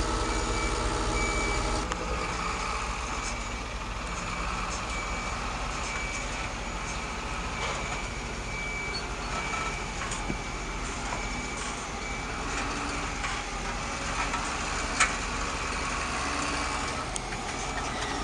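Electronic sound of the RC-converted Bruder Volvo A60H dump truck: a steady simulated engine sound with a reverse-warning beep repeating about once a second as the truck backs up and tips its body. A single sharp click comes about fifteen seconds in.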